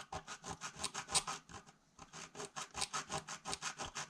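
Atlas Super Saw, a fine-toothed hobby saw, cutting through 1/4-inch brass tubing in quick back-and-forth strokes, about seven a second. The sawing briefly pauses a little before the two-second mark.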